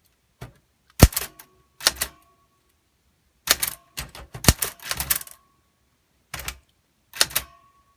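Manual typewriter (We R Memory Keepers Typecast) typing: about a dozen sharp, irregular key strikes in small clusters as the typebars hit the paper. Some strikes leave a short metallic ring.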